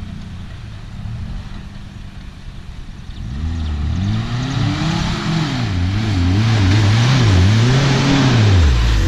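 Off-road 4x4's engine running low at first, then revved up and down over and over from about three seconds in, getting louder. A rushing hiss builds alongside the revs.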